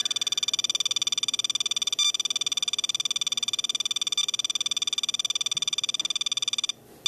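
SOEKS radiation dosimeter sounding its high-radiation alarm, a rapid, evenly pulsed high-pitched beeping that breaks off briefly near the end. The alarm is set off by a uranium-glazed China Red Fiesta Ware bowl reading about 64 microsieverts per hour.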